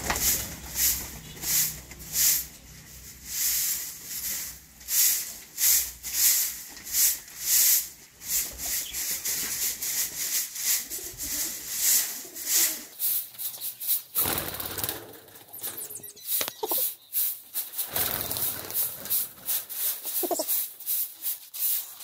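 Straw hand broom sweeping a dusty floor: a series of short, swishing strokes that come faster in the second half. A few short bird calls sound near the end.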